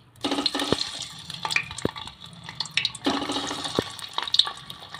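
Boiled eggs sizzling and spattering as they are dropped into hot oil in a pressure cooker. The sizzle starts suddenly a moment in, eases off, and flares up again about three seconds in as more eggs go in, with scattered pops.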